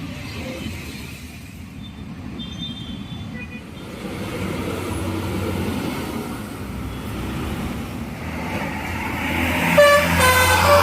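A Mercedes-Benz 1626 tour bus's diesel engine drawing closer and growing louder. Near the end its Basuri telolet horn starts up, sounding several notes at once in a changing melody.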